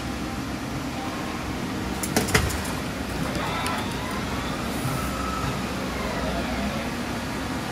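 Doosan Puma 240MS CNC turning center running under power: a steady machine hum with a cluster of sharp clicks about two seconds in, then a faint whine rising and falling as the turret slides move and the spindle turns.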